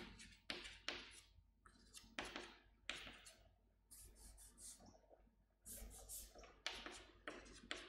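Chalk writing on a chalkboard: faint, irregular scratches and taps as each stroke is drawn.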